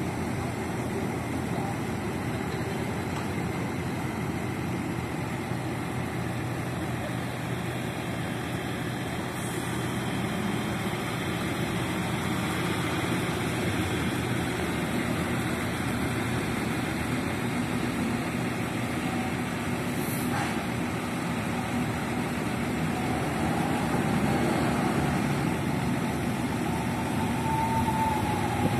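Mercedes-Benz OH 1526 coach's rear-mounted diesel engine idling steadily. A thin whine comes in and the sound gets a little louder over the last few seconds.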